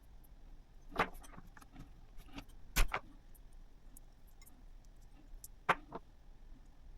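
Sharp clicks and knocks of small hard parts being handled, with a few faint ticks between. The loudest is a quick double click about three seconds in, and there are single ones about a second in and two close together near the end.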